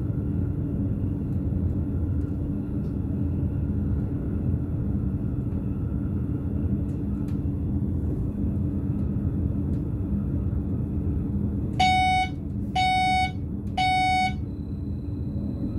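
Steady rumble of a BLS RABe 515 electric multiple unit running at speed, heard in the driver's cab. About twelve seconds in, the cab warning signal beeps three times, half a second each, warning that the next signal shows stop; a thin high tone then stays on.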